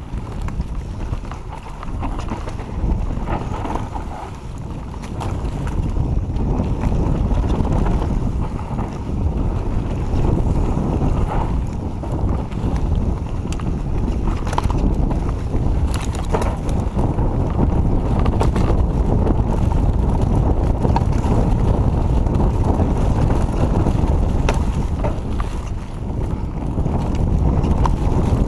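Wind buffeting the camera microphone and the tyres rumbling over a dirt trail as a Giant Reign enduro mountain bike descends at speed, with scattered sharp clicks and knocks from the bike rattling over roots and rocks. The noise grows louder about five seconds in as the speed picks up.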